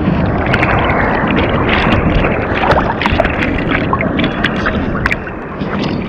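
Seawater sloshing and splashing against a surfboard right at the microphone, with many small sharp plinks of droplets over a steady wash of water noise.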